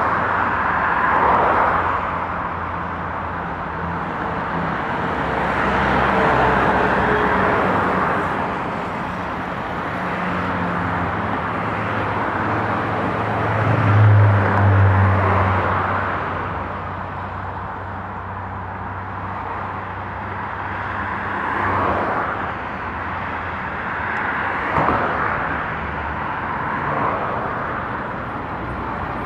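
Heavy diesel truck engine running amid road traffic noise, its note rising and falling. It is loudest about halfway through.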